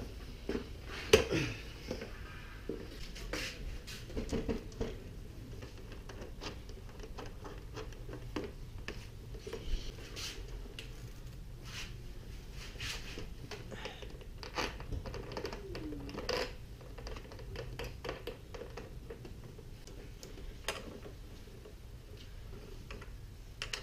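Scattered light metallic clicks, taps and scrapes of hand tools and parts being handled as the motorcycle's fuel filler cap assembly is bolted back onto the tank with a hex key. The sharpest click comes about a second in.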